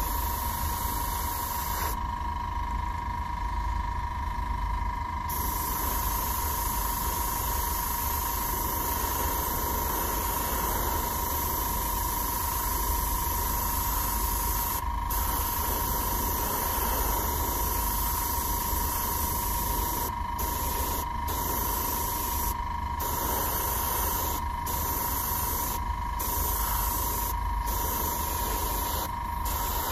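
Airbrush, a Sotar 20/20, hissing as it sprays a thin, watery coat of blue acrylic onto a plastic model panel. The hiss stops for a few seconds about two seconds in, then cuts out briefly several more times near the end, over a steady low hum.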